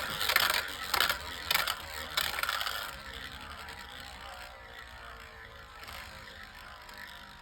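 Two Beyblade Micros tops spinning and colliding in a small plastic stadium: a dense clicking rattle of plastic strikes during the first three seconds, then a fainter steady rattle as the tops lose speed.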